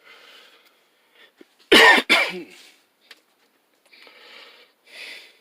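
A man coughs loudly about two seconds in, two quick coughs in a row, followed by a few breaths.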